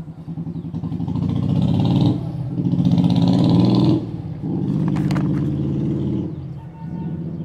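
Engine of a passing motor vehicle, building up over the first couple of seconds, staying loud through the middle and fading away about six and a half seconds in.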